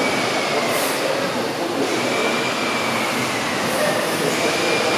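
The Victoria half of a twin tandem compound horizontal steam mill engine running steadily: an even mechanical running noise and hiss, with a faint thin whine that rises and falls about every two seconds.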